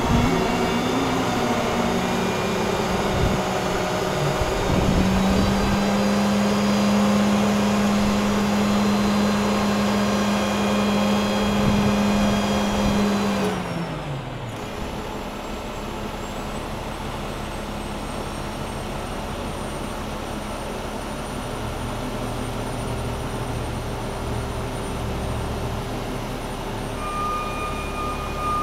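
Truck engine running steadily at raised speed, then winding down in pitch about halfway through and settling to a quieter idle. A single steady electronic beep sounds near the end.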